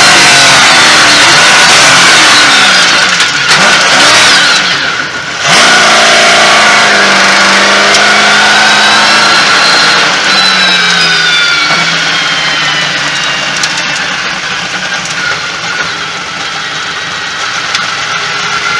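Trophy truck's Chevrolet V8 racing engine heard from inside the cab, loud and revving hard, its pitch rising and falling through the gears. About five seconds in the sound drops away briefly, then comes straight back at full power.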